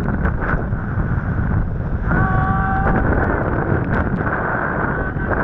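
Wind buffeting the microphone and water rushing and spraying as an inflatable tube is towed at speed behind a boat. About two seconds in, a short held tone sounds for under a second.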